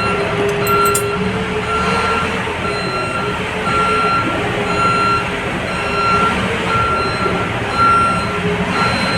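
Boom machine's reversing alarm beeping evenly, about three beeps every two seconds, over its engine running steadily.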